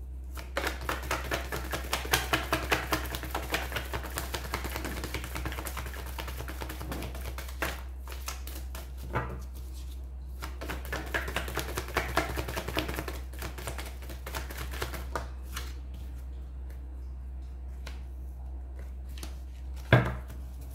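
A deck of tarot cards being shuffled by hand: two spells of rapid, light card slaps lasting several seconds each. Near the end a single card is knocked down on the table, over a steady low hum.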